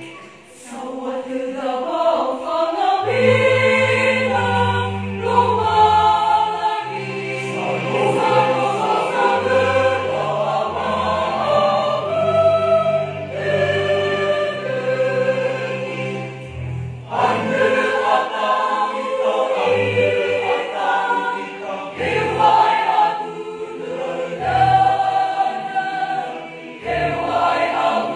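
Mixed church choir singing a Nias-language hymn in parts, with steady low bass notes under the voices.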